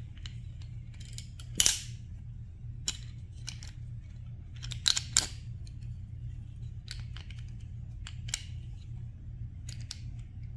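Small metallic clicks and scrapes of a Zastava M88A Tokarev's recoil spring and guide rod being worked by hand into the pistol's slide. The clicks are scattered, with the loudest about a second and a half in and a close pair about five seconds in, over a steady low hum.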